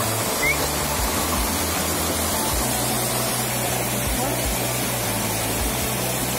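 Rushing water of a shallow rapid inside a river cave, a steady rush of white water over rocks, with a low steady hum underneath that shifts in pitch about halfway through.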